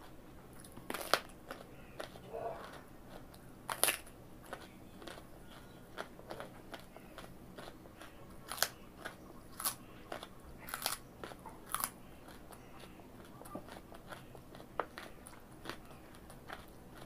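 Raw carrot being bitten and chewed close to the microphone: sharp, crisp crunches at irregular intervals, the loudest in the first twelve seconds, softer chewing crunches near the end.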